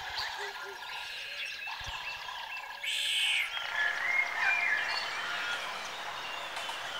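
Wild animal calls: repeated short croaking calls and scattered chirps over a steady high drone. The mix changes and grows louder about three seconds in.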